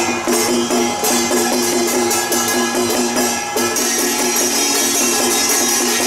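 Taiwanese temple ritual music: ringing metal percussion such as small gongs and cymbals over a short repeating low melody, played at a steady quick pace.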